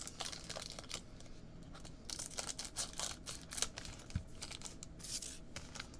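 Plastic wrapping on a trading card box or pack being torn open and crinkled by hand, in irregular crackling rustles.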